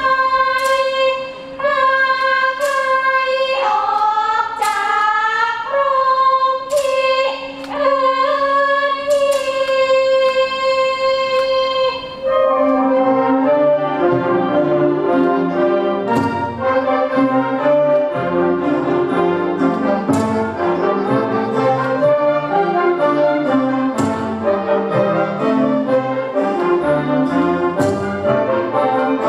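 Orchestral music for a Khon dance-drama: a slow melody of long held notes over a steady low drone, then about twelve seconds in the full orchestra enters with a busy, rhythmic passage.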